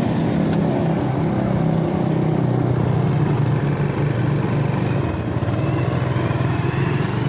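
Motorcycle engine running steadily under way, heard from the rider's seat, easing slightly about five seconds in.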